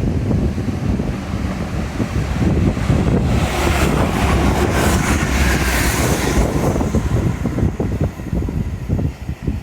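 Wind buffeting a phone's microphone, with a louder hissing rush lasting about three seconds in the middle.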